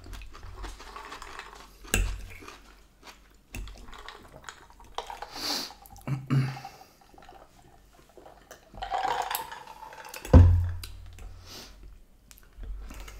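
Mealtime eating sounds: metal cutlery clicking and scraping on china plates, chewing, and a drink sipped from a glass, with a single sharp knock on the table about ten seconds in.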